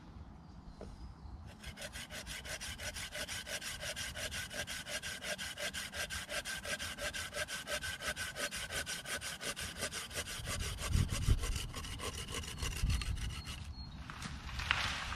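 Hand saw cutting through a wooden stick with quick, even back-and-forth strokes that stop shortly before the end. In the last few seconds there are deep thuds and a crash from a tree falling in the woods.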